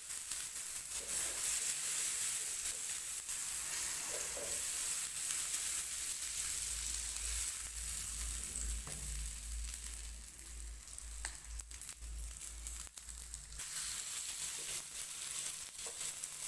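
Butter sizzling on a hot tawa as halved kulcha buns are pressed down and toasted in it: a steady frying sizzle that thins out about ten seconds in and picks up again a few seconds later, with a couple of light clicks.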